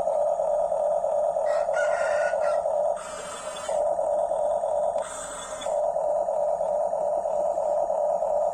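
Huina 1569 RC bulldozer's electric drive motors and gearboxes whining steadily, cutting out twice for under a second with a short noisy scrape in their place.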